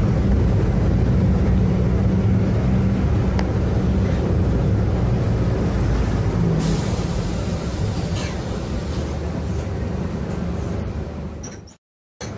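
City bus engine and road noise heard from inside the moving bus: a steady low drone that cuts off abruptly near the end.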